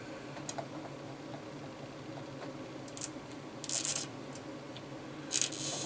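Short hissy scraping noises from a soldering iron working the solder joints of a bulged electrolytic capacitor on a TV power-supply board, the two loudest about four seconds in and near the end, over a steady low hum.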